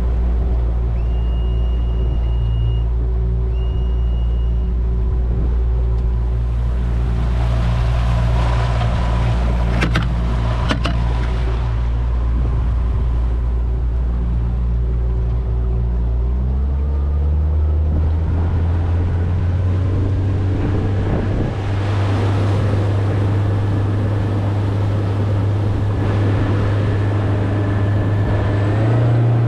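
Yamaha 115 four-stroke outboard motor running under way, stepping up in pitch about halfway through and again near the end as the throttle is opened. Two high electronic beeps sound near the start, over a rush of wind and water.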